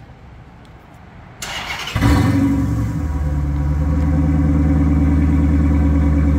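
2014 Dodge Challenger R/T's 5.7-litre Hemi V8 starting through a mid-muffler-delete exhaust with the factory resonators and catalytic converters still fitted. The starter cranks briefly about a second and a half in, then the engine catches with a loud flare and settles into a steady idle.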